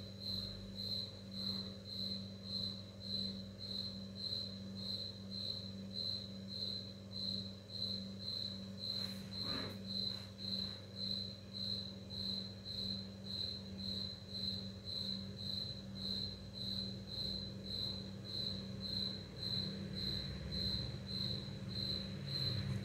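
Steady cricket-like chirping, one high note repeating evenly about twice a second. A brief swish cuts through about nine seconds in, and a low rumble grows near the end as a motorbike passes in the street.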